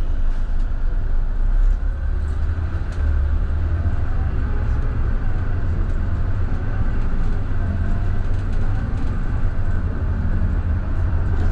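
Scania K320IB bus under way: its five-cylinder diesel engine running with a steady low drone over road noise.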